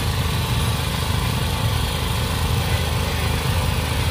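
A small engine running steadily with an even, low hum.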